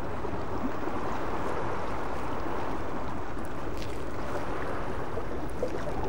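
Sea swell washing and churning, an even, unbroken rush of water with no distinct wave crashes.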